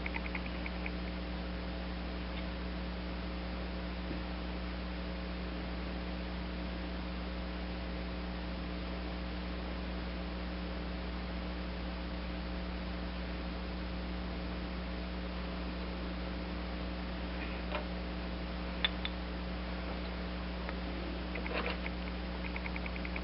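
Steady electrical mains hum, with a few faint light clicks about three-quarters of the way through and again near the end.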